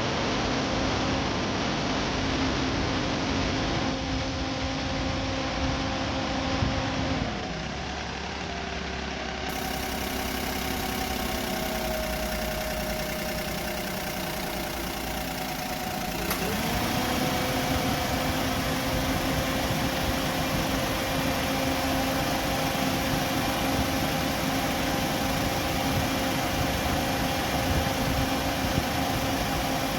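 Car engine idling steadily. Its pitch drops about seven seconds in and climbs back to the earlier idle about sixteen seconds in.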